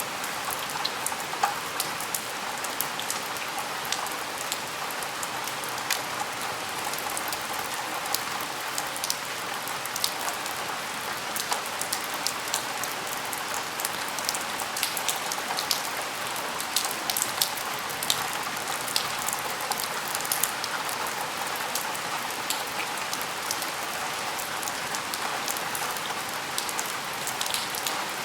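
Steady rain falling and spattering at a window, with a dense patter of individual drops ticking sharply over a constant hiss.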